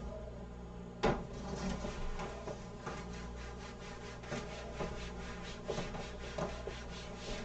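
Whiteboard eraser rubbing across a whiteboard in faint, repeated wiping strokes, with a sharp tap about a second in.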